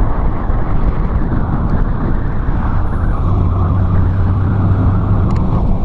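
A car driving down a street, heard from a camera mounted on the outside of the moving car: steady engine and road noise. A low, steady engine hum comes in about halfway through and lasts for nearly two seconds.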